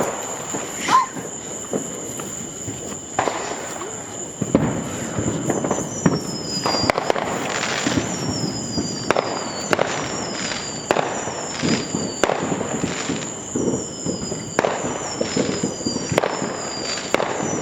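Consumer fireworks going off in quick succession: many sharp bangs and crackles, with short falling whistles repeating from about six seconds in.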